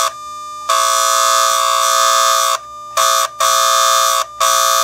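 Miniature field-coil speaker from an American Flyer locomotive, its field coil energised by AC track power, sounding a loud, buzzy 600-cycle whistle tone with track-power hum. It sounds in separate blasts: a long one starting under a second in, then two short ones, then another near the end.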